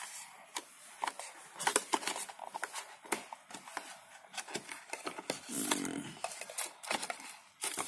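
Scattered clicks and rustles of a Fitbit Blaze's box packaging being handled: the watch lifted out of its cardboard insert, its clear plastic wrap crinkling.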